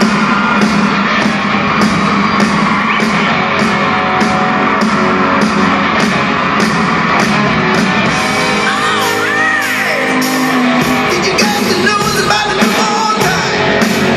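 Live rock band playing loud through an arena's sound system: a fast, steady drum beat under guitars, with singing that comes in about eight seconds in.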